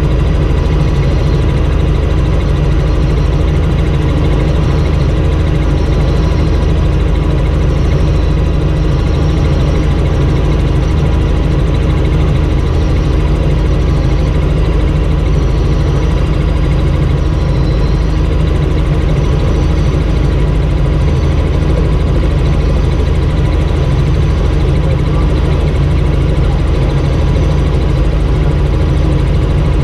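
Light helicopter in cruising flight, its engine and rotor noise heard from inside the cabin as a loud, steady, low drone.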